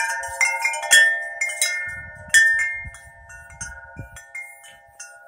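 Metal wind chimes ringing, struck irregularly several times, with the loudest strikes in the first half and the ringing dying away toward the end.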